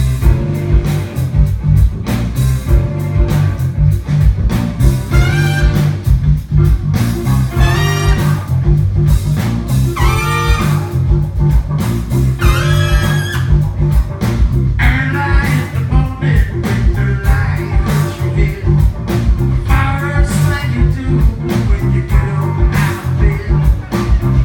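A live band playing a blues-rock song, with bass and drums keeping a steady beat and melodic lead lines coming and going over the top.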